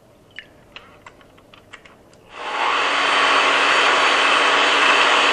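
A few light clicks, then about two and a half seconds in an electric mixer starts up on high speed and runs with a steady whir, beating eggs in a bowl until they are foamy.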